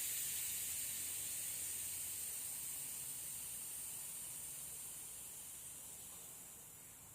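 Air hissing out through a bicycle tyre's valve as the tyre is deflated. The hiss fades steadily as the pressure drops and dies away at the end.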